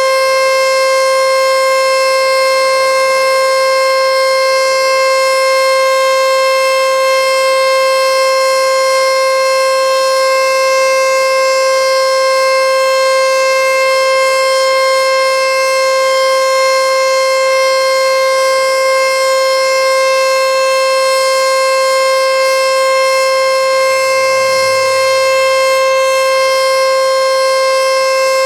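Federal Signal outdoor warning siren at the Diablo Canyon nuclear plant sounding a full test. It holds one loud, steady, unwavering tone with no rise or fall.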